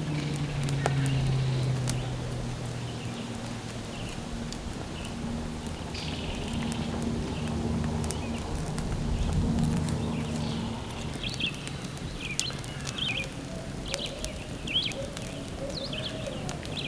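Outdoor woodland ambience: a low steady drone, falling slightly in pitch and fading out after about ten seconds, then small birds chirping through the rest, with scattered faint clicks.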